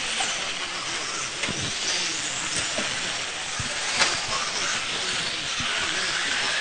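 Electric four-wheel-drive RC off-road cars racing on a dirt track: a steady high hiss of motors and tyres, with a sharp click about four seconds in.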